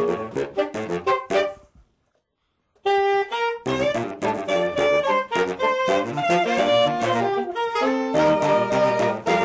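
Saxophone quartet of soprano, alto, tenor and baritone saxophones playing a jazz-tinged arrangement. The music stops dead for about a second near two seconds in, then all the voices come back in together.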